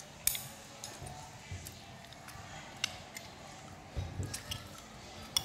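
Scattered light clicks and clinks of a metal spoon and utensils against plates during a meal, with a faint murmur of voices.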